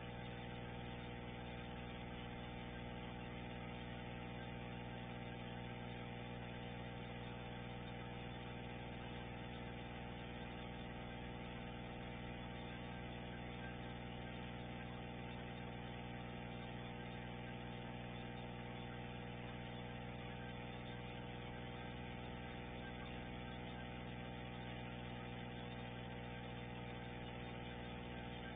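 A steady, unchanging hum with many evenly spaced overtones.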